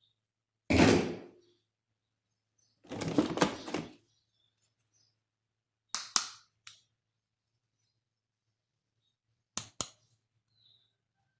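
Plastic toys and packaging being handled: a loud knock about a second in, a crackly rattle around three seconds, then sharp clicks near six seconds and a quick pair of clicks near the end.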